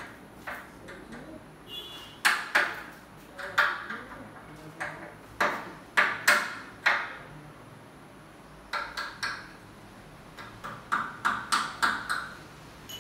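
Sharp metallic taps and knocks on an aluminium window frame as it is fitted, each ringing briefly. They come irregularly in small groups, with a quick run of taps near the end.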